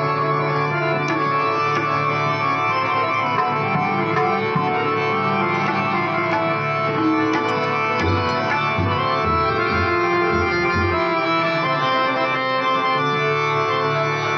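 Harmonium playing the slow instrumental opening of a devotional abhang with sustained reedy chords, joined by a few deep drum strokes about eight to eleven seconds in.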